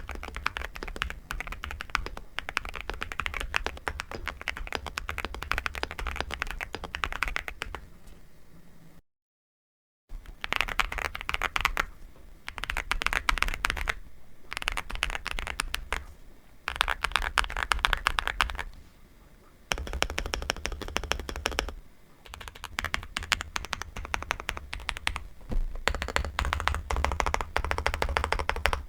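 Fast typing on a NuPhy Gem 80 mechanical keyboard: dense runs of key clacks that stop and start again several times. There is a cut to dead silence for about a second, some nine seconds in.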